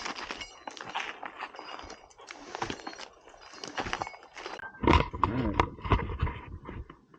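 Tree-removal work in a dead loblolly pine: irregular knocks and clicks, then about five seconds in a louder, wavering grinding sound with a heavy low end, ending in a sharp thump.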